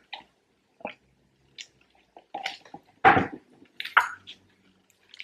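A person eating: a sip through a straw from a paper cup, then chewing a burger, heard as a string of short separate mouth sounds with a louder one about three seconds in.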